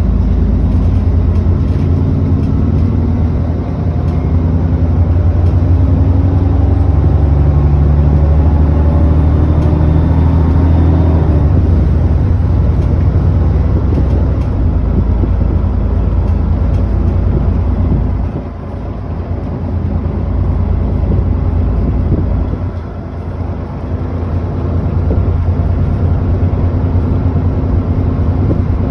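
ADL Enviro400 double-decker bus heard from on board, its diesel engine pulling steadily with a slowly rising note for roughly the first half. It then eases off to a lower, rougher drone, with two brief drops in loudness later on.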